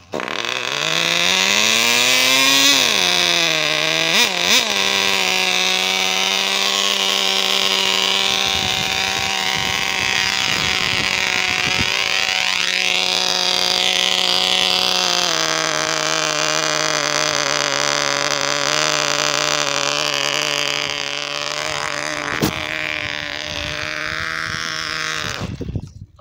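Cox .051 Tee Dee two-stroke glow engine in a 1/10 RC car running at a steady high buzz after rising in pitch in the first few seconds. It drops a step in pitch about halfway through and cuts out abruptly near the end.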